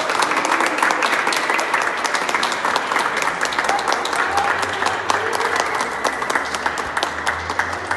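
A small group of people clapping their hands in steady applause, easing off slightly near the end.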